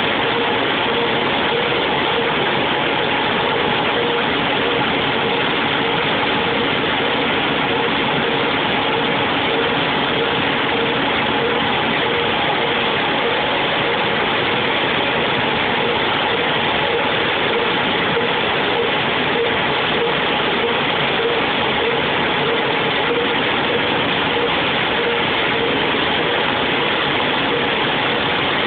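A machine running steadily: an even mechanical drone with a faint tone that pulses in a regular rhythm.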